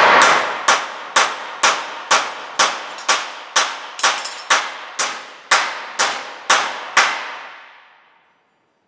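Steel hammer striking a copper compression lug against a steel welding table, crimping the lug onto a welding ground cable: about fifteen evenly paced blows, roughly two a second, each ringing. The blows stop near the end and the ringing dies away.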